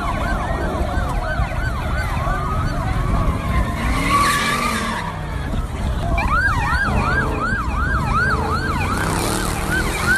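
Police car siren on a fast yelp, its pitch sweeping up and down about three times a second, over car engine and road noise. The yelp drops out for a few seconds around the middle, where a louder burst of noise comes through, then resumes.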